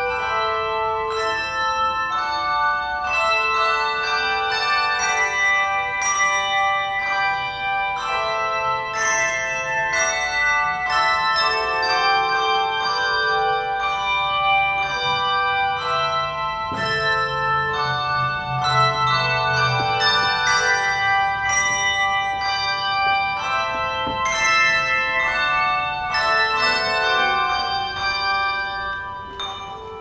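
A handbell ensemble playing a piece: many tuned handbells rung in rhythm, their notes ringing on and overlapping, with the playing softer near the end.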